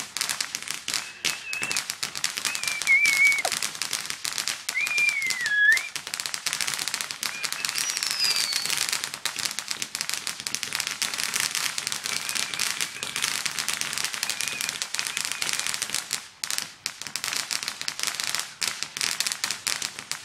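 Garden firework crackling continuously in a dense, rapid run of small cracks, with a few wavering whistles over the first several seconds.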